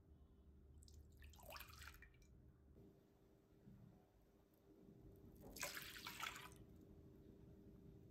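Warm milk, then warm water, poured from a drinking glass into a glass bowl: two separate splashing pours, the first about a second in and the second about five seconds in, each lasting a second or so.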